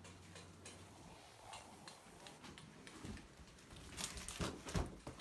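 Faint rustling with scattered light clicks and knocks, as of things being handled, growing busier and louder over the last couple of seconds.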